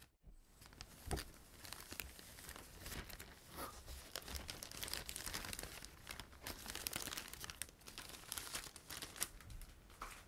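Thin clear plastic bag of paper manuals crinkling and crackling as it is handled and lifted out of a headphone box.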